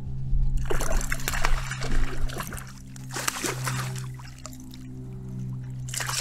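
Water splashing in several bouts, starting about half a second in, as a pike strikes a topwater buzzbait and thrashes at the surface, over background music with a steady low note.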